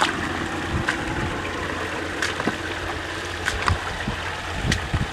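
Shallow creek water trickling, over a low steady rumble, with a few scattered sharp clicks.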